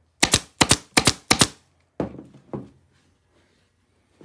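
Upholstery staple gun firing a quick run of sharp shots into the cushion's seat base over about a second and a half, then two duller knocks.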